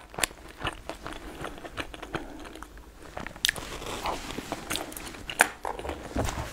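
Close-up eating sounds: chopsticks working food from a bowl into the mouth, then biting and chewing with many short, sharp mouth clicks.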